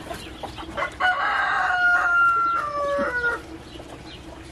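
A rooster crowing once: a long call of about two and a half seconds, starting about a second in and stepping down in pitch toward the end.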